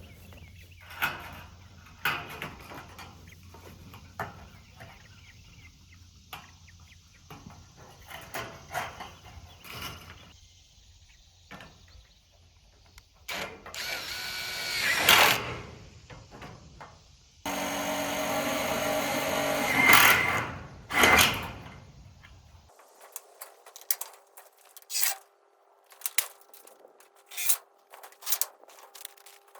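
A power drill runs twice, the first run rising in pitch, the second longer and steadier, amid scattered knocks and clicks of materials being handled.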